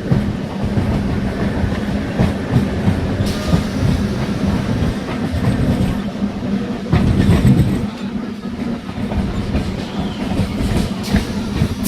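MEMU electric multiple-unit train running, with a steady low hum and wheels clattering over rail joints.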